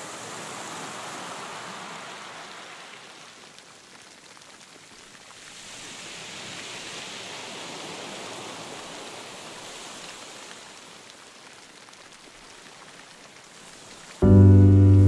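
Ocean surf breaking and washing up the shore, the rush swelling twice and falling back. Loud music with a heavy bass cuts in suddenly near the end.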